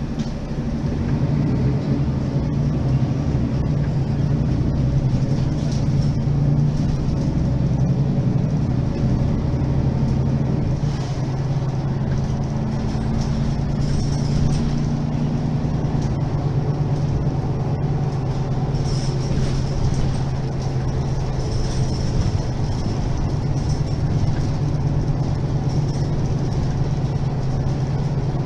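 Mercedes-Benz Citaro G articulated city bus (2008 facelift) engine idling with a steady low hum while the bus stands still.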